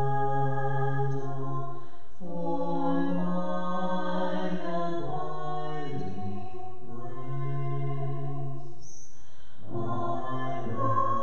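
A woman and a man singing a slow hymn together, holding long notes, with short pauses between phrases.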